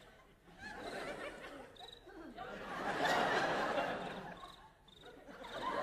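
Theatre audience laughing in waves, building to its loudest around the middle, dipping briefly and swelling again near the end.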